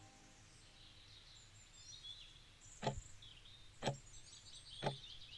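Quartz wall clock ticking three times, one tick a second, over faint birds chirping.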